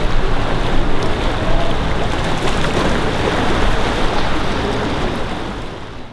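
Small sea waves washing over rocks at the shoreline, a steady rushing noise with a low rumble underneath, fading out near the end.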